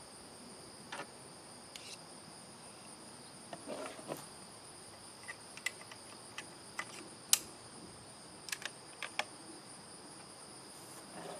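Steady, high-pitched chorus of insects in the grass, with a scatter of short, light clicks and knocks as the bolt-action .22 rifle and gear are handled. The sharpest click comes a little past the middle.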